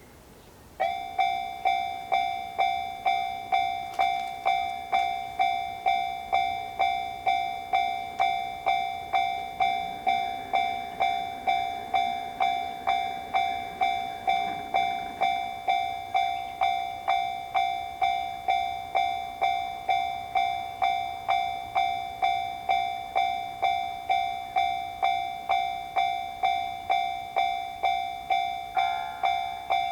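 Japanese railroad crossing warning bell starting suddenly about a second in, then ringing its steady two-tone 'kan-kan' at a little under two strikes a second: the crossing is active, warning of an approaching train.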